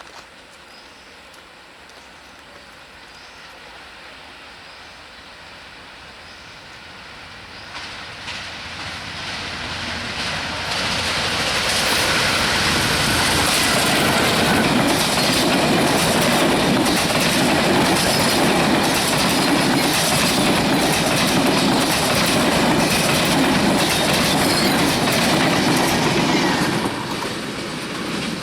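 Broad-gauge express train of PT-INKA coaches behind a WDM-3A diesel locomotive passing through at speed: a faint rumble swells about a quarter of the way in into a loud, steady clatter of wheels over rail joints, easing near the end.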